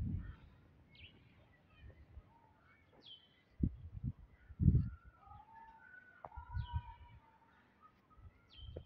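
Birds calling outdoors: a short, quickly falling high chirp repeated every two or three seconds, with other softer calls in the middle. A few brief low thumps on the microphone, the loudest about four to five seconds in.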